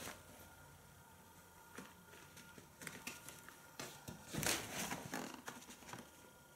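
Soft, scattered rustles and scuffs of a nylon play tent's fabric being moved, with a louder rustle about four and a half seconds in.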